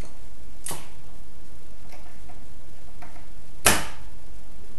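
Two sharp snaps about three seconds apart from the plunger of an electric vacuum desoldering pump as it is worked to suck molten solder off a circuit board.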